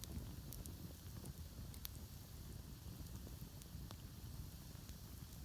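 Wood campfire crackling faintly, with a few scattered sharp pops over a low steady rumble.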